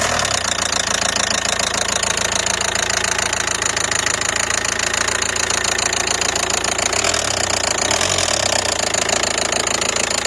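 Nissan Qashqai 1.5 dCi four-cylinder diesel engine idling just after starting, with a steady rapid knock from the upper part of the engine. The knock is not strong.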